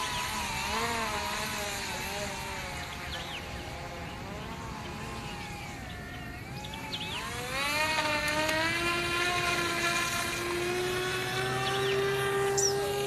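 Motors and propellers of an RC model PBY Catalina seaplane, the pitch wavering up and down as the throttle is worked, then rising about seven seconds in and holding high and steady as it powers up for a takeoff run from the water.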